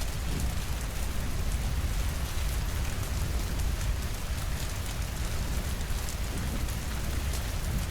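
Steady rainfall over a continuous low rumble, with many small drop ticks.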